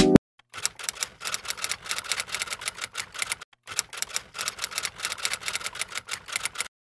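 Typewriter keystroke sound effect: a rapid run of key clacks, several a second, with a brief pause about three and a half seconds in.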